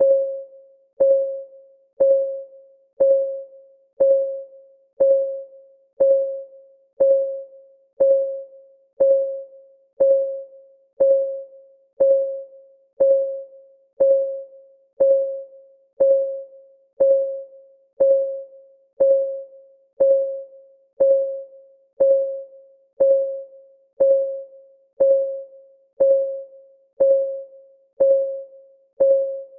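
Clock-ticking sound of a countdown timer: one short, mid-pitched tick about once a second, each fading quickly, at a steady even pace.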